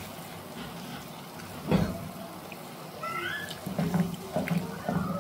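Wooden spoon stirring a thin milk-and-flour mushroom sauce in a pan, a soft wet scraping and sloshing, with one knock of the spoon about a second and a half in. About three seconds in comes a brief high, rising squeak-like call.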